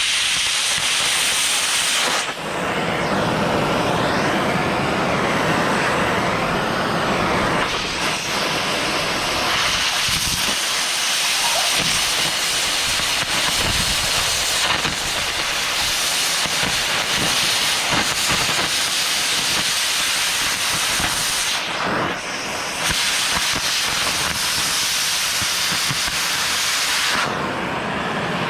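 Oxy-fuel cutting torch hissing steadily as its oxygen jet cuts into the cast steel pilot bit of a foundation-drilling auger, throwing sparks and slag. The hiss breaks briefly about three quarters of the way through and drops off near the end as the torch is lifted away.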